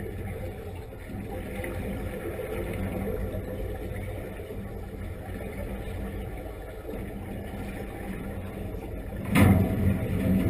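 Heard underwater: a steady low hum, with a loud gush of bubbles from a diver's surface-supplied helmet a little over nine seconds in, fading over about half a second.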